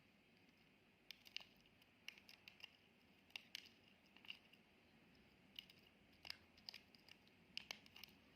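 Faint, irregular small clicks and taps, about fifteen of them, starting about a second in, over quiet room hiss.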